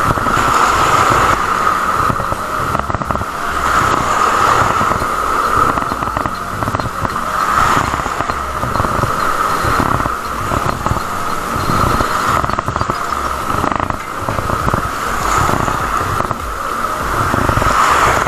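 Steady rushing noise of wind and surf on a rocky shore, swelling about every four seconds.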